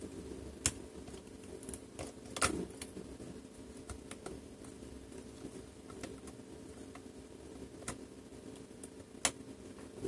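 Scattered light clicks and taps of a laptop's USB/headphone daughter board and small parts being handled and pressed into place in the opened chassis, with a few sharper clicks, the loudest about two and a half seconds in.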